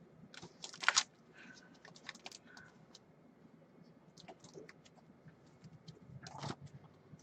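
Scattered light clicks and taps, with a louder clatter about a second in and another near the end.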